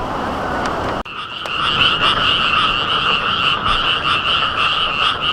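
Dense chorus of thousands of frogs calling at once: a continuous, rapidly pulsing trill in two pitch bands. It cuts in about a second in, after a short stretch of steady rushing noise.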